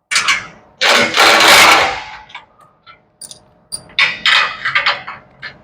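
A handheld power wrench run in short bursts on a bolt, the longest about a second, with several shorter bursts and metal clicks toward the end.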